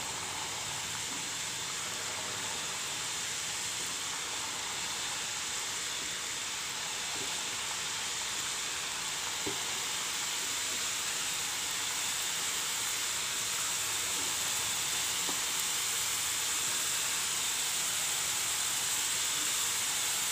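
Besan sev (gram-flour dough strands) deep-frying in hot oil: a steady sizzle that slowly grows louder, with an occasional faint pop.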